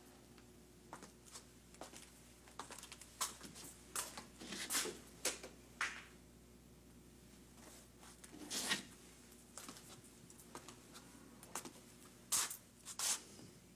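Scattered soft clicks, rustles and short scrapes as a man moves about a quiet room, louder between about three and six seconds in, again near eight and a half seconds and near the end, over a low steady hum.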